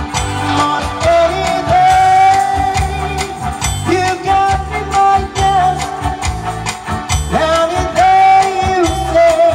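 Live band playing a cha-cha through a PA system: electronic keyboard with a steady pulsing bass beat, and a woman singing long held notes into a microphone.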